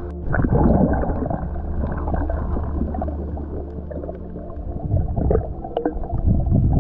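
Muffled underwater sound through an action camera's waterproof housing as a spearfisher dives: a rush of water and bubbles about a second in, then a low steady rumble with scattered small clicks and gurgles.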